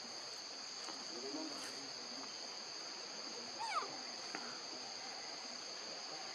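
Insects, crickets or cicadas, keep up a steady high-pitched drone. A little past halfway there is one brief high call that slides sharply down in pitch.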